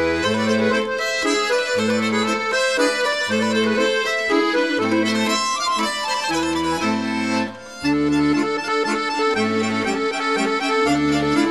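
Background music with an accordion melody over a regular alternating bass line, which drops out briefly about two-thirds of the way through.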